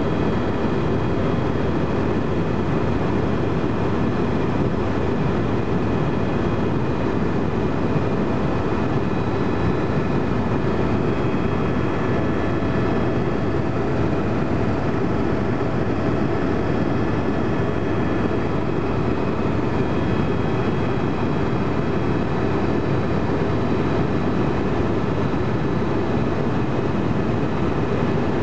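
Helicopter in steady cruising flight, heard from inside the cabin: a dense, even rumble of rotor and turbine engine, with several faint high whining tones from the turbine that hold steady.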